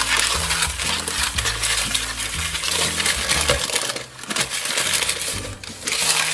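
Grease paper rubbing and scraping around the inside of a metal round cake tin as margarine is wiped over its bottom and sides, with the tin rasping and rattling lightly under the hand. There are brief lulls about four seconds in and again near the end.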